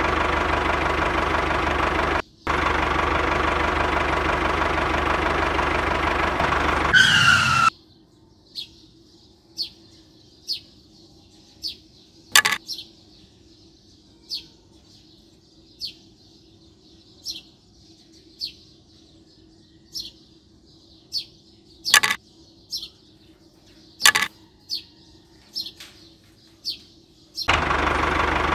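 Engine running steadily for the first several seconds, rising in pitch just before it cuts off. Then birds chirping every second or so over a faint steady hum, with three sharp clicks as wooden logs are set on the toy trailer. The engine starts again near the end.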